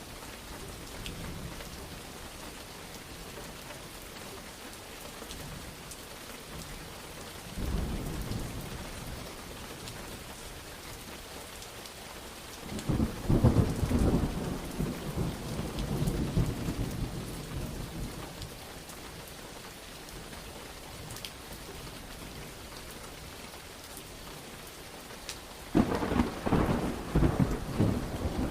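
Steady rain with thunder rolling three times: a short rumble about eight seconds in, a louder, longer roll starting about thirteen seconds in with sharp cracks at its start, and another sharp roll near the end.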